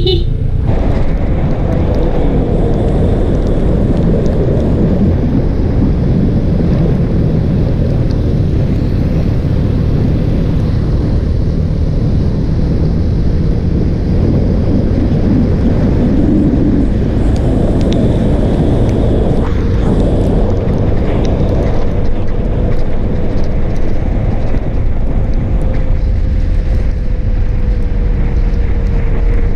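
Wind buffeting the rider's microphone on a moving Yamaha Sniper 155 motorcycle, with its single-cylinder engine running at a steady cruising speed underneath as a thin, even drone.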